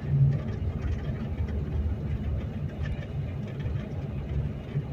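Vehicle driving along the road, a steady low engine and tyre rumble heard from inside the cabin.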